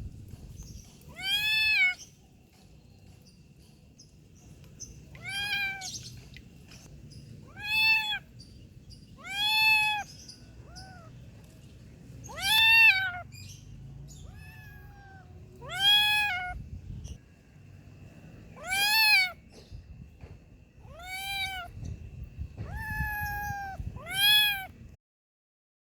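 Kitten meowing repeatedly: about ten high-pitched meows, each rising and then falling in pitch, a few seconds apart.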